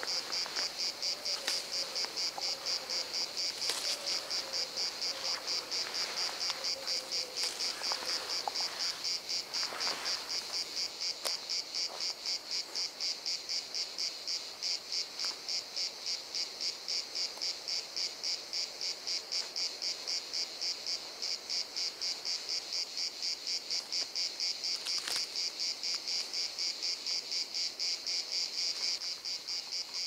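A steady chorus of insects trilling high-pitched in a fast, even pulsing rhythm, with a few faint clicks over it.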